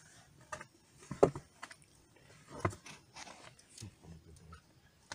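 Wood campfire crackling, with a handful of sharp pops at irregular intervals, the loudest a little over a second in.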